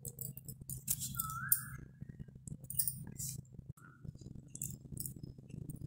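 Soft squishing of mashed potato filling pressed by hand into pointed gourd rings, with scattered light clicks and clinks against a stainless steel bowl.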